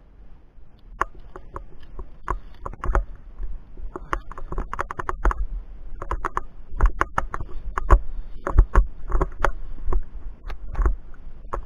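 Irregular, rapid clicking and clinking of via ferrata carabiners and lanyard gear knocking on the steel safety cable and rock, mixed with low thumps of footsteps on the rocky path; the clicks come in quick clusters, busier from a few seconds in.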